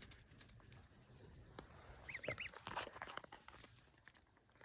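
Gosling peeping softly: a quick run of three short chirps, each rising then falling, about two seconds in, with faint clicks around them.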